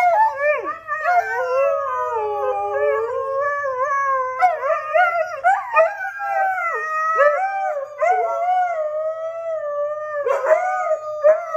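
Siberian husky howling and screaming in long, wavering wails that bend up and down in pitch, almost without pause, with brief breaks about eight and ten seconds in.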